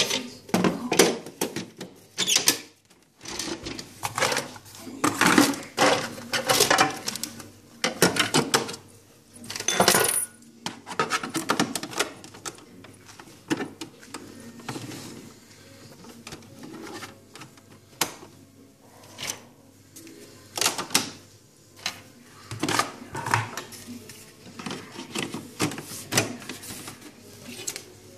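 Irregular clattering, knocking and clicking of hard plastic parts of a Krups EA8000 espresso machine being handled and pushed into place, such as the drip tray and its grille.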